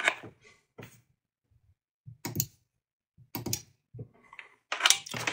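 A handful of separate light clicks and taps, spaced out with quiet between them: a smart plug being switched on and handled on a workbench.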